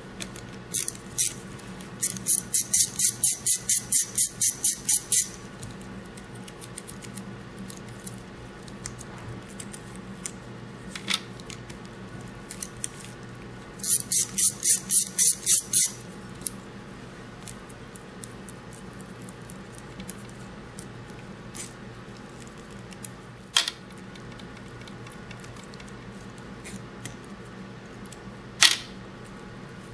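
Socket ratchet clicking as it backs out the screws holding a Hydra-Cell pump's end plate. Two runs of quick, even clicks, about four a second: the first about two seconds in, lasting some three seconds, the second about fourteen seconds in, lasting two seconds. A few single clicks fall in between.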